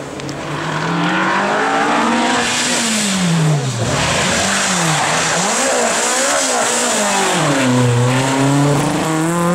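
Rally car engine driven hard: its pitch climbs for about three seconds, drops sharply as the throttle is lifted, then rises and falls several times in quick succession as the driver works the throttle, before climbing again and holding near the end.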